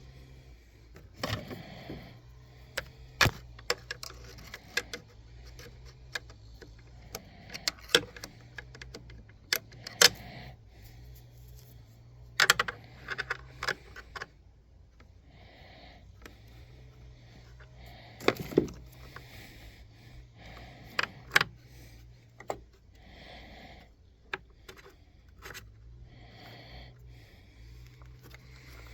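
Irregular clicks, taps and scrapes of small parts being handled and pushed into place while the primer knob assembly of an outboard motor is refitted, with several sharper knocks. A low steady hum runs underneath.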